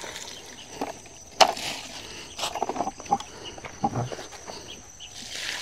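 Plastic bag and bucket being handled: scattered rustles and light knocks, the sharpest about one and a half seconds in, over faint outdoor background noise.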